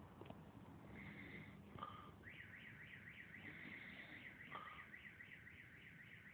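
Comic snore whistle: a faint high whistle held briefly, then warbling rapidly up and down for about four seconds, like a car alarm.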